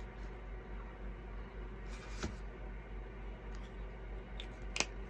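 Quiet room tone with a steady low hum, broken by a few faint small clicks and light scrapes of craft work at a table.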